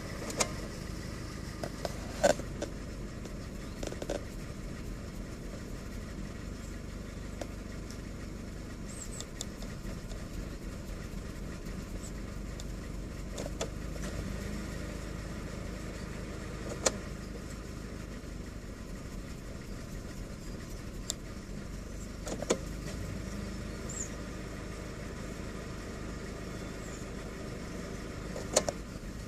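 Vauxhall Corsa C engine idling roughly, a steady low running broken by a few sharp clicks at irregular moments.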